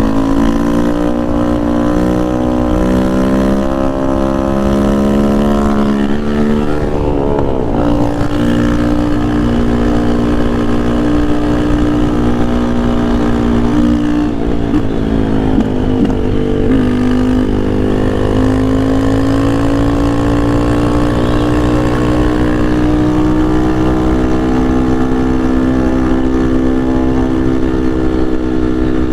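Yamaha Lander 250's single-cylinder four-stroke engine running under way while ridden hard. Its pitch steps up and down with throttle and gear changes in the first half, then climbs slowly and steadily through the latter part.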